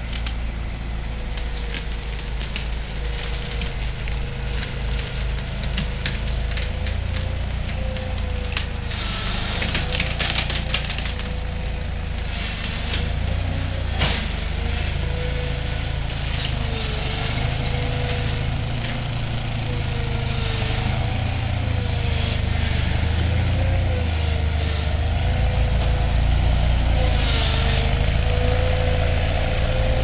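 Small engine of a towable boom lift running steadily, with a thin whine that wavers up and down in pitch. A short run of sharp clicks and rattles comes about a third of the way in, and a single knock a few seconds later.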